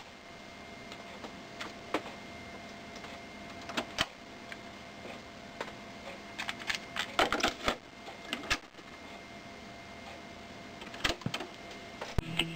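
Cassette deck of a Panasonic SG-J500 boombox being loaded by hand: scattered plastic clicks and clatter as the cassette door is opened, a tape is put in, the door is shut and the keys are pressed, busiest about halfway through. A faint steady electrical hum runs underneath.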